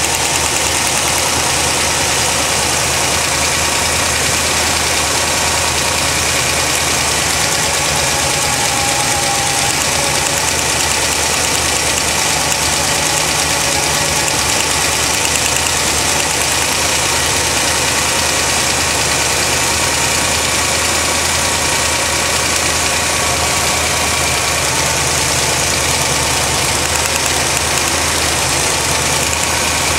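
1980 Corvette's V8 engine idling steadily, with a ticking that the owner thinks sounds like the spark plugs arcing.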